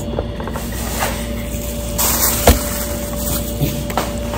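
Steady room hum with a constant tone, broken by a few short clicks and knocks, the sharpest about two and a half seconds in.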